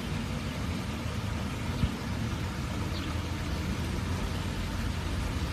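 Steady background rumble and hiss with no distinct event, with one faint click about two seconds in.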